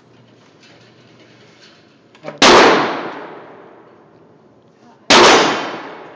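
Two rifle shots about two and a half seconds apart, each a very loud crack followed by a long echoing decay off the walls of an indoor range.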